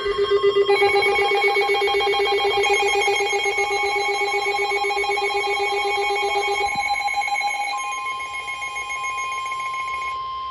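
Weather radio alert tones: a loud, rapidly pulsing electronic alarm for about seven seconds. About eight seconds in, a single steady tone near 1 kHz takes over, the NOAA Weather Radio warning alarm tone that comes before a new warning message.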